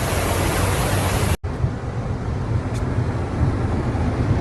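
Outdoor storm noise: a loud, even hiss that cuts off abruptly about a second and a half in. It is followed by a different noise dominated by a low rumble, with much less hiss.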